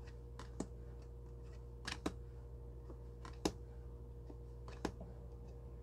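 Faint clicks and snaps of tarot cards being handled and flipped through, about six sharp ticks spread unevenly over a low steady hum.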